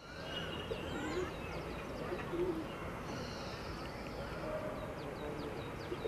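Outdoor ambience with several birds calling: many short high chirps and, now and then, a low cooing note. Under them runs a steady background noise.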